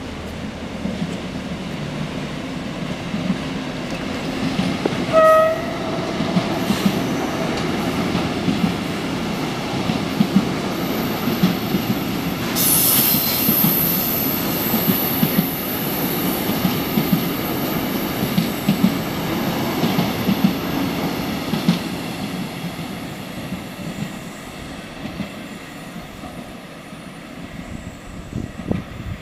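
Long container freight train running past on an electrified line: a steady rumble with a rhythmic clatter of wheels over the rails. A brief horn toot comes about five seconds in. From about twelve seconds a high, thin wheel squeal sets in as the wagons take the curve. The sound fades near the end as the train draws away.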